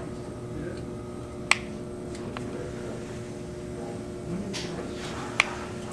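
A hot glue gun being worked over aluminium foil: two sharp clicks, about a second and a half in and near the end, with a few faint ticks and a brief rustle between. Under them is a steady low room hum.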